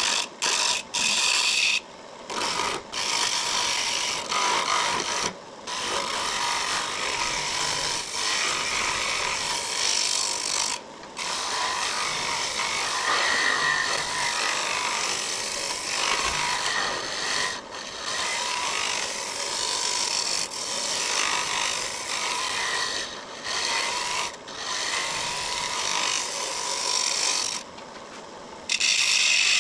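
Turning tool cutting a small wood blank spinning on a wood lathe: a rasping scrape of the cut that breaks off for a moment about seven times as the tool is lifted from the wood, the longest gap near the end.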